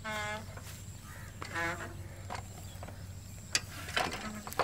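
Two short animal calls about a second and a half apart, the second higher-pitched, then a few sharp clicks near the end.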